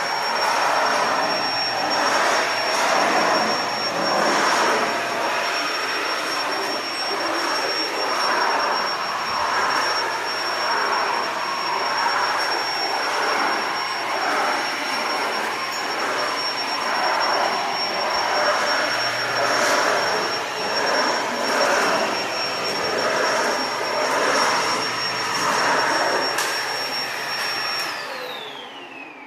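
Vacuum cleaner running with a steady motor whine over a rushing of air, swelling and fading every second or two. Near the end it is switched off and the whine falls away as the motor spins down.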